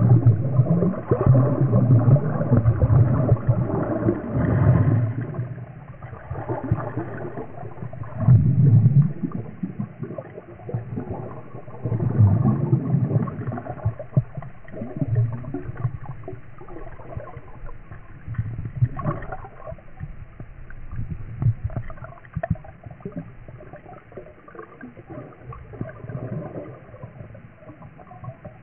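Underwater bubbling and churning water picked up by a submerged microphone, coming in irregular low surges. It is loudest at the start, with further surges now and then, and dies down toward the end as the bubbles thin out.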